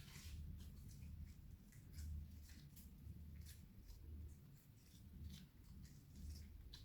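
Faint sticky crackles and small clicks of clear slime being kneaded and stretched by hand, over a low rumble.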